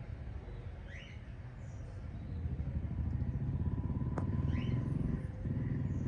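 A loud, pulsing low rumble like a running engine, with two short upward-sweeping budgie chirps over it, one about a second in and one past the middle, and a sharp click just before the second chirp.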